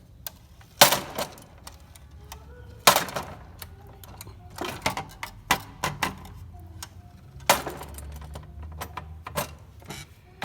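Knocks and clicks of a sliding miter saw being handled and worked free from its packing. Three sharp, louder knocks come about a second in, near three seconds and at about seven and a half seconds, with lighter clatter between them.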